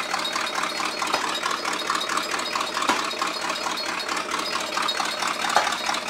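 Chevrolet El Camino's carbureted engine, just caught after a no-start, running unevenly and spitting, a rapid stream of pulses with an occasional louder pop. The owner puts the rough running down to the ignition timing being off.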